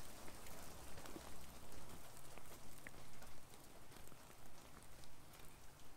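Small hailstones falling and pattering on the ground: a steady hiss dotted with many scattered sharp ticks.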